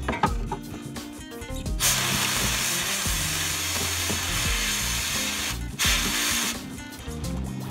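Sandblasting gun in a blast cabinet hissing as compressed air drives grit onto a motorcycle frame tube: one long blast starting about two seconds in, a brief break, then a short burst. Background music plays underneath.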